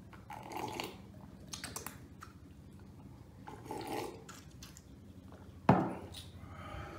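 Two people sipping drinks from plastic cups, with faint slurps and swallows. A single sharp knock comes a little before six seconds in. A faint steady low hum runs underneath.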